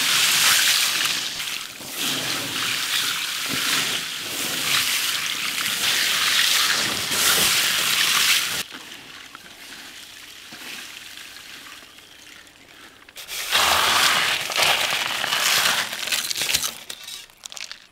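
Hands tossing and mixing a large heap of crisp fried Kerala mixture (sev, peanuts, curry leaves and dried chillies), a dry, crunchy rustling. It falls away about eight and a half seconds in and comes back loudly for a few seconds near the end.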